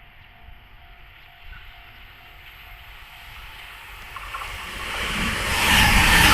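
E259 series Narita Express electric train approaching, its running noise swelling from faint to loud over the last two seconds.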